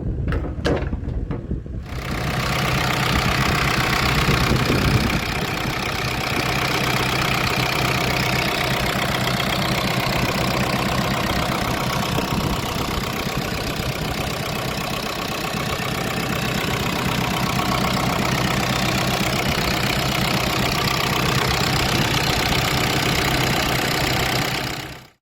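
Diesel engine of a JCB 85Z-1 midi excavator running steadily. It gets suddenly louder about two seconds in, after a few sharp clicks.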